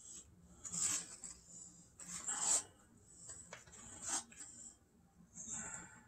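A bare hand squishing and working thick, sticky bread dough in a mixing bowl: a few irregular wet squelches and rubs, the loudest about a second and two and a half seconds in. The dough is thickening as flour is worked in.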